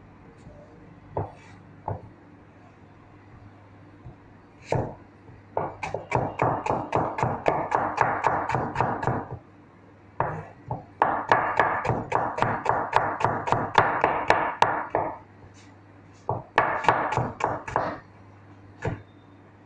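Cleaver chopping onion on a cutting board: a few single knocks, then three quick runs of chops at about five a second. A steady low hum runs underneath.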